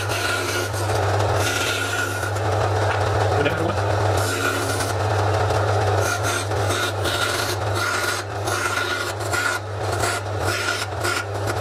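Homemade bandsaw, converted from a metal-cutting bandsaw, cutting a curve through chipboard: a steady motor hum under a rasping cutting noise with a thin whine, the cutting noise coming in short pulses in the second half as the board is fed and turned. The blade runs at a low speed, which the owner finds too slow for wood.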